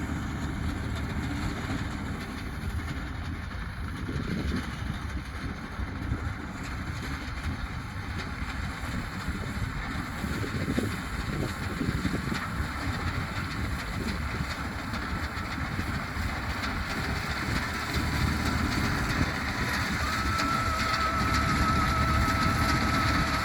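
Fiat 480 tractor's three-cylinder diesel engine running steadily while it drives a front-mounted wheat reaper. It grows a little louder near the end, where a thin steady whine joins in.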